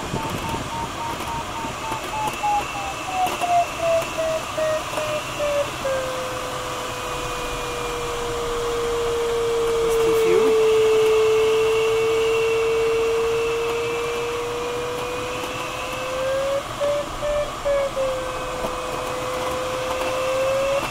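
Glider's audio variometer: quick high beeps at first, then the tone slides down into a steady lower hum for about ten seconds, breaking into beeps again twice near the end as the glider circles through a thermal; the beeps signal climbing, the steady tone weak lift or sink. Under it, the steady hiss of airflow past the cockpit.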